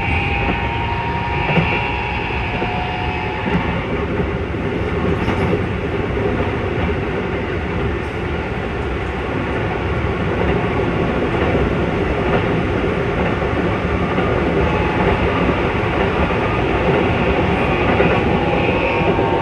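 Keikyu 1000-series electric train heard from on board while running: steady wheel-and-rail rumble with a rough traction-motor and Toyo IGBT inverter whine. The whine fades soon after the start and returns near the end. The roughness comes from Mitsubishi traction motors swapped into this car.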